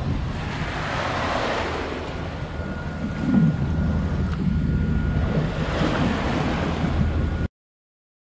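Sea waves rushing past a sailing yacht with wind buffeting the microphone, over a low steady rumble. The wash swells about a second in and again near the end, with a brief louder surge a little past three seconds, then cuts off suddenly.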